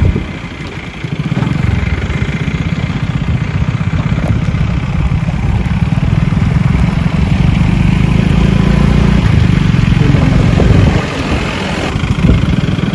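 Motorcycle engine running steadily while riding along a road. The level dips briefly about half a second in and again about eleven seconds in.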